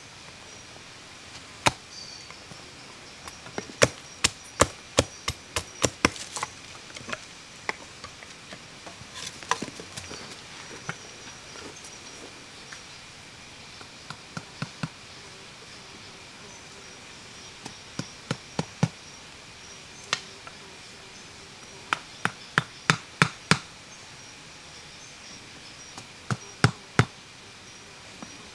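Wood being chopped with a blade, in short runs of quick sharp strokes with pauses between them. Insects drone steadily underneath.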